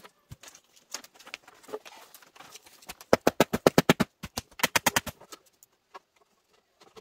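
Bamboo knocking and rattling as split-bamboo slats and poles are handled and fitted to a bamboo frame. Scattered light clicks give way to a fast rattling run of knocks, about ten a second, some three seconds in, and a shorter run follows about a second later.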